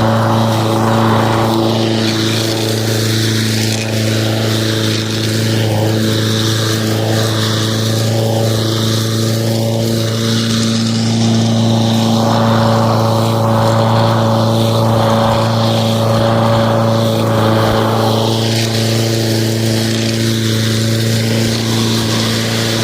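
Lawn mower running steadily at constant speed, a loud even hum with a rushing noise that swells and fades on top.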